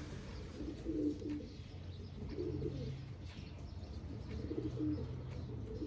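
Racing pigeons cooing: three low cooing phrases over a steady low hum.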